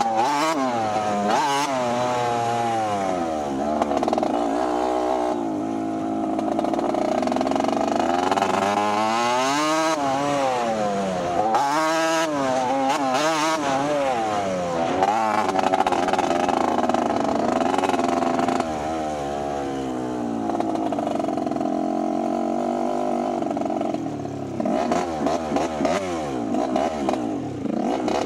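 Dirt bike engine revving up and down as it is ridden, its pitch rising and falling every second or two, with choppy rattling near the end.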